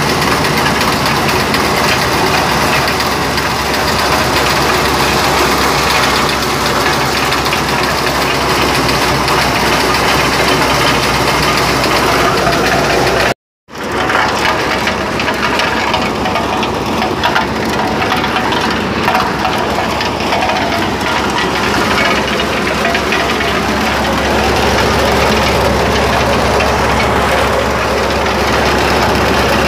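Motorised corn sheller running steadily, its engine and threshing mechanism making a loud, continuous mechanical noise. The sound cuts out for a moment about halfway through, then resumes.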